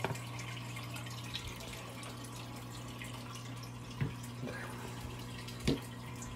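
Aquarium filter running: a steady low hum with water trickling, plus a few knocks from handling, the loudest nearly six seconds in.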